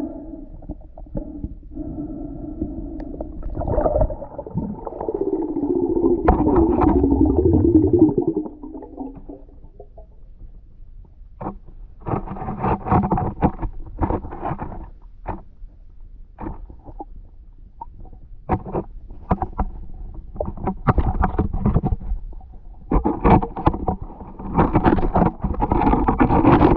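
Muffled underwater sound from a submerged camera's microphone. A loud bubbling, gurgling rush lasts a few seconds, about four seconds in, and is followed by bursts of clicks, knocks and bubbling.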